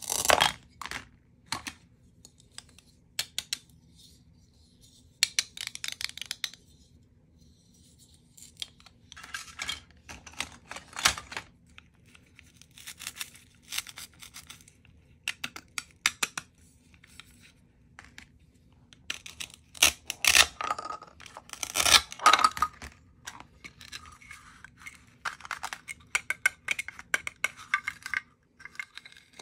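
Toy cutting-play food set: irregular short rasping rips of hook-and-loop fastened plastic fruit halves (grapes, then a tomato) being cut and pulled apart with a plastic knife. Light clicks and clacks of plastic knife and pieces on a plastic cutting board come in between.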